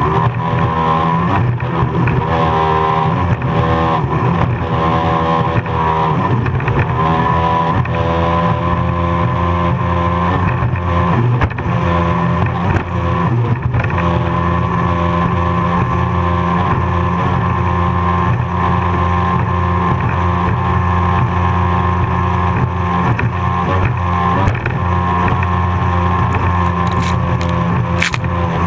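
Racing powerboat's engine running hard, heard from on board with wind and rushing water. Its pitch rises and falls repeatedly through roughly the first half as the boat rides over the waves, then holds steadier.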